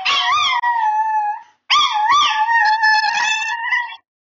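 Chihuahua howling: two long howls with a short break between them, each rising at the start and then held at one high pitch.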